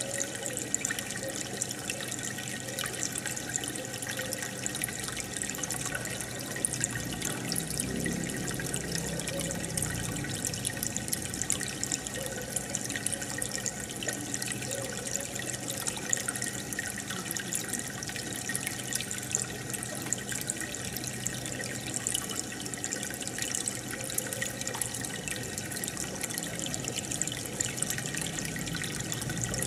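Steady bubbling and trickling of aquarium water, with many small pops, from the stream of air bubbles rising in the tank and its filter.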